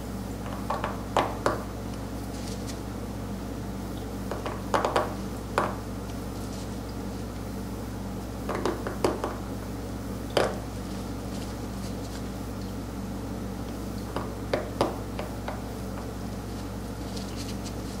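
A steel carving knife scraping and chipping into a stone seal: small clusters of short scratches and clicks a few seconds apart, over a steady low hum.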